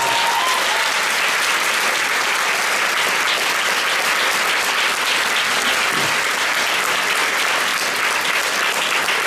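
Large audience applauding, a steady, dense clapping that holds at an even level throughout.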